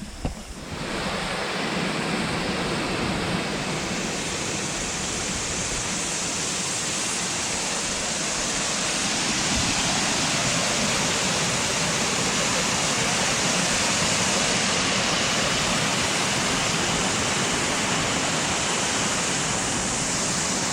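Steady, unbroken rushing of flowing water from a waterfall or fast stream.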